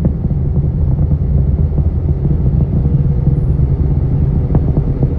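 Distant rocket launch rumble: a steady, loud low rumble from the climbing rocket's engines, with a couple of faint crackles near the end.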